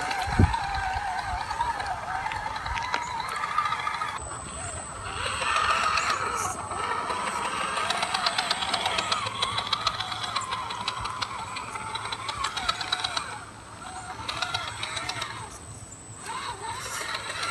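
RC scale rock crawler's electric motor and gear drivetrain whining, the pitch wavering up and down with throttle as the truck climbs over rock ledges. A single thump about half a second in.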